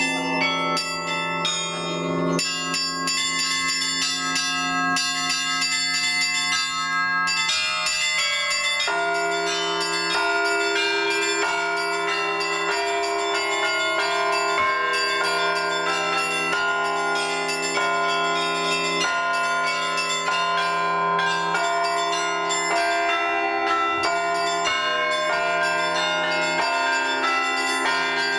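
Russian Orthodox church bells rung continuously in a full peal (zvon), many small bells struck in quick succession over the longer ringing of the larger bells.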